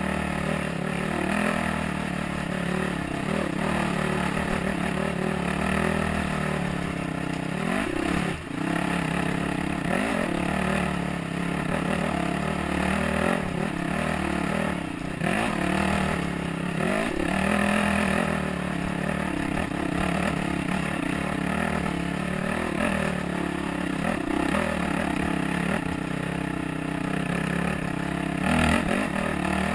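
Dirt bike engine running hard on a trail ride, its pitch rising and falling over and over as the rider works the throttle.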